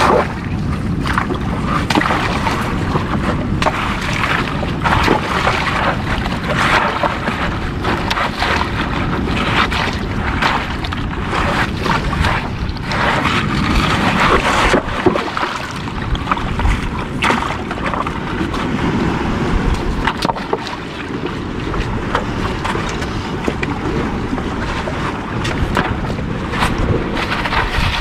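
Gusty wind buffeting the microphone over the wash of surf on a rocky shore, with scattered knocks and clicks.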